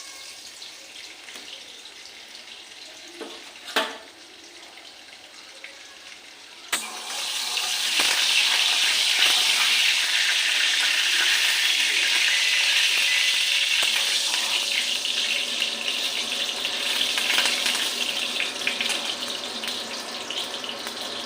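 Hot cooking oil in a kadai, faint at first with a couple of sharp clicks, then breaking suddenly into loud, steady sizzling about a third of the way in as something goes into the hot oil.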